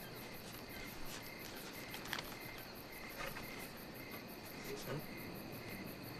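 Crickets chirping steadily in a quiet night-time background, with a few faint clicks.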